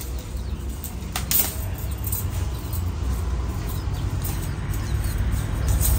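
Gongura (sorrel) plant being pulled and broken by hand: leaf rustling with two short crackles about a second in, over a steady low rumble.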